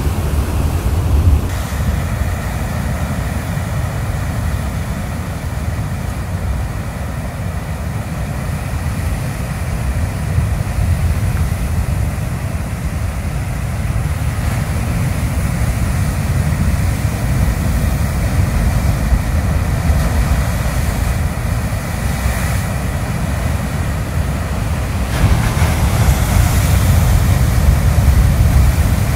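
Ocean surf breaking on a rocky shore: a steady, low, noisy rumble mixed with wind buffeting the microphone. It grows louder a few seconds before the end as a big wave breaks.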